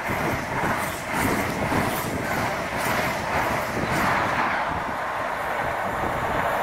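High Speed Train passing at speed. The coach wheels beat in a steady rapid rhythm over the rails, the rear diesel power car goes by about four seconds in, and then the sound smooths out as the train pulls away.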